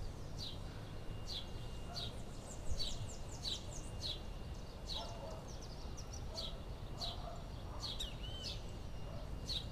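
A bird repeating a short, high, falling chirp a little more than once a second, over a low steady background rumble.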